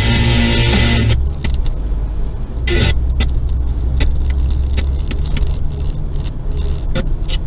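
Car driving, heard from inside the cabin: a steady low road and engine rumble, with scattered small clicks and rattles.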